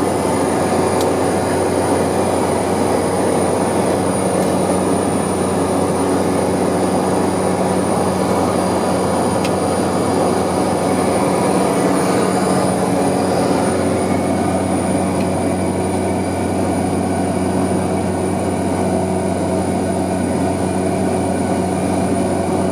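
Cabin noise of a Cessna 208B Caravan in flight: the single Pratt & Whitney PT6A turboprop and propeller give a steady, loud drone with a low hum and a thin high turbine whine, holding constant power.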